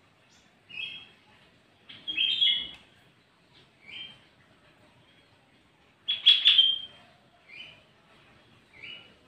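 Sooty-headed bulbul (kutilang) singing: two louder quick phrases of several notes, about two and six seconds in, with short single notes between them.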